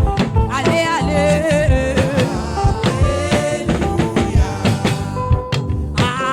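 Gospel praise music: a voice singing a melody over a live band with drum kit.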